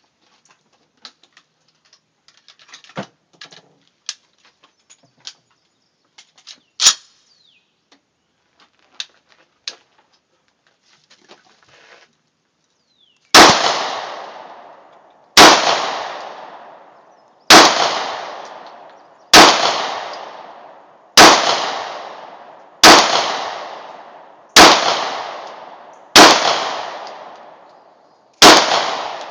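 Faint clicks and small knocks of handling, then, about 13 seconds in, a Ruger Mini-14 semi-automatic rifle fires nine shots at a steady pace of about one every two seconds. Each shot is loud and followed by a long echoing decay.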